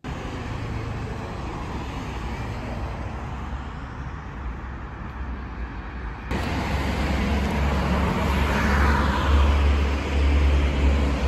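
Road traffic noise: a steady wash of passing cars. About six seconds in it grows louder, with a deep low rumble and one car swelling past.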